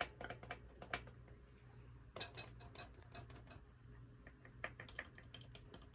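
Faint, irregular small clicks and ticks of bulbs being wiggled in their lamp sockets under a pinball playfield. This is a test for bad sockets: a bulb that flickers on and off when moved means the socket needs replacing.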